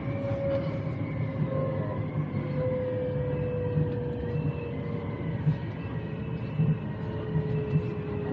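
Public transport vehicle in motion: a steady running rumble with a motor whine that slowly falls in pitch, as when the vehicle slows, and a few light knocks.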